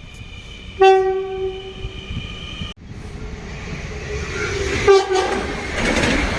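Train horns in the Netherlands. A steady horn chord sounds, and a louder, lower note joins about a second in and then fades. The horn breaks off suddenly and the rush of a passing train builds, with a short horn toot a little after halfway.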